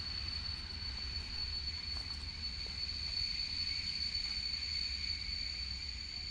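Wind rumbling on the microphone, with a steady high-pitched whine.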